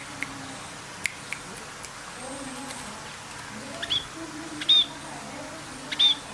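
Birds calling: three short, high, arching chirps in the second half, with a few sharp clicks in the first half.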